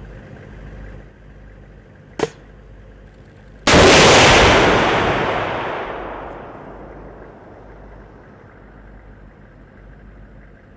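TOW missile launched from a Humvee-mounted M41A7 ITAS launcher: a sudden loud blast about three and a half seconds in, then the missile's rushing roar fading away over a few seconds as it flies downrange. A short click comes a second or so before the launch.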